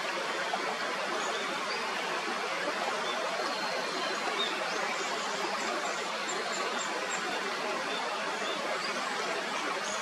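Mountain stream rushing steadily over rocks, with faint high chirps scattered over the water noise.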